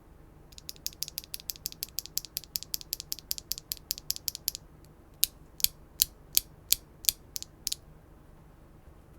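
Mechanical keyboard with HMX Cosmic Purple linear switches (POM housing, LY stem) on an aluminium plate with no foam, keys pressed and released in a fast even run of about seven strokes a second for some four seconds. After a short pause come about eight louder, slower strokes. Each stroke is a high-pitched clack.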